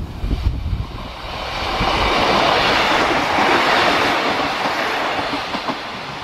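Class 155 Sprinter two-car diesel multiple unit passing close by: a rush of wheel and rail noise that swells to its loudest around the middle as the coaches go past, then begins to fade near the end.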